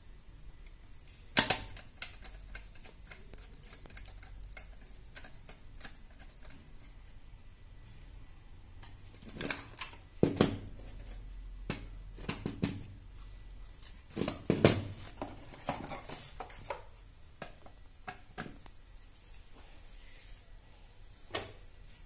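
Irregular clicks, taps and knocks of hard plastic and metal parts being handled and snapped together as the rotary operating handle and its extension shaft are fitted to a moulded-case circuit breaker. The sharpest knock comes about a second and a half in, with clusters of knocks around ten and fifteen seconds in.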